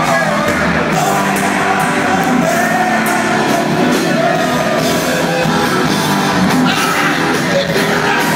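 Live heavy-metal band playing loudly in an arena: distorted electric guitar, drums and a singing voice, heard through a fan's phone microphone.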